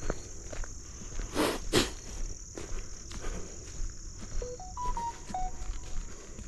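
Steady high-pitched chorus of insects trilling in a late-summer marsh, with a person's footsteps and two louder swishes of brushing through vegetation about a second and a half in.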